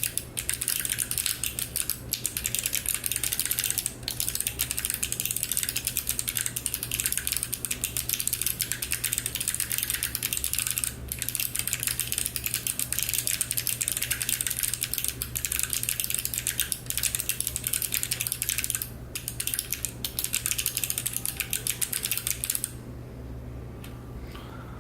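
Fast typing on a mechanical keyboard with Kailh Box Navy clicky switches and ABS keycaps in a low-profile aluminium case: a dense stream of sharp key clicks with a few brief pauses, stopping about two seconds before the end. A low steady hum runs underneath.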